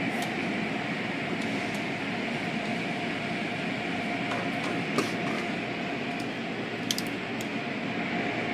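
Automatic car wash heard from inside the car: spinning cloth brushes and water spray washing over the windshield and body, a steady mechanical wash noise with a faint hum running under it. A couple of sharp taps stand out, about five seconds in and again near seven seconds.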